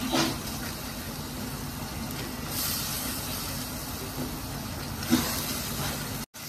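Onion-and-yogurt masala sizzling as it fries in a steel kadai, stirred with a wooden spatula, with a few louder scrapes of the spatula against the pan. This is the stage of frying the masala until the oil separates. The sound drops out briefly just before the end.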